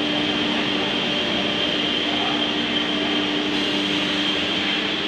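Holztek CNC nesting router running steadily, a low hum with a high whine above it and no breaks.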